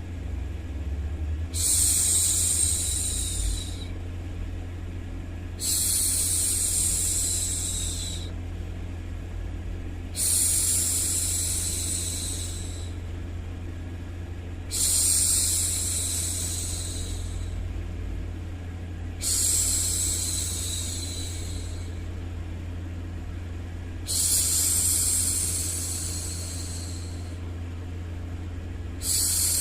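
A woman shushing 'shhh' to soothe a baby, in long hissing strokes of about two seconds, repeated about every four and a half seconds, over a steady low background noise.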